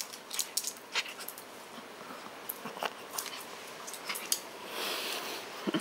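Small Pomeranian moving about on a wooden parquet floor: scattered light clicks and taps of its claws on the wood, with a short breathy snuffle about five seconds in.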